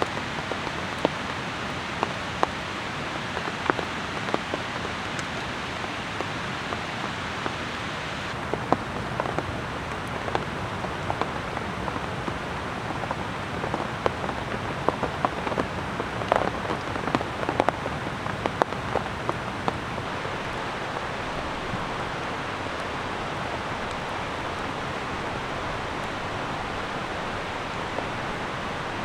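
Steady rain, with many sharp, irregular drops striking close by, thickest through the middle.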